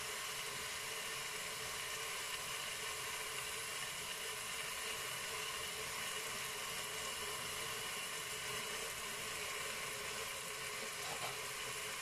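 Marinated chicken thighs sizzling steadily as they brown in a Cookeo multicooker's bowl, an even hiss.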